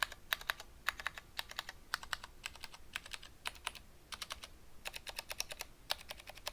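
Typing on a stock Vortex ViBe mechanical keyboard with unlubricated Cherry MX Clear switches: an irregular run of sharp key clacks, several a second. The extra noise comes from scratchy switches and loose, rattly stabilizers.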